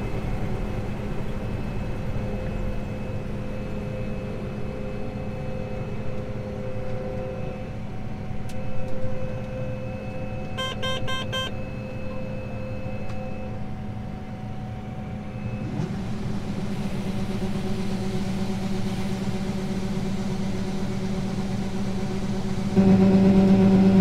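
Combine harvester heard from inside its cab while cutting soybeans: a steady drone of engine and threshing machinery. About ten seconds in there is a quick run of rapid electronic beeps, and near the end the drone steps up louder.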